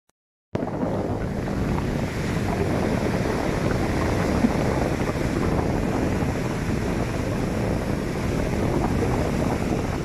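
Surf breaking and washing up a sandy beach, with wind buffeting the microphone, starting about half a second in and running steadily.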